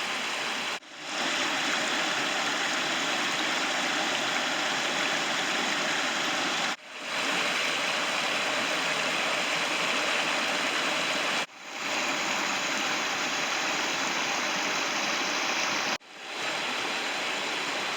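Steady rushing of running water, like a creek or small waterfall. It is cut off abruptly four times and fades straight back in each time.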